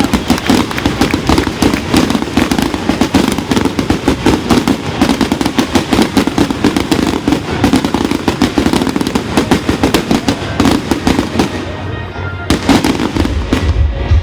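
Fireworks display going off in a rapid, continuous barrage of bangs and crackles. It thins out about twelve seconds in, when music with a heavy bass beat takes over near the end.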